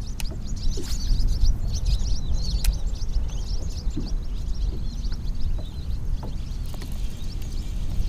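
Wind buffeting the microphone as a steady low rumble, with many birds chirping in quick, high calls over it.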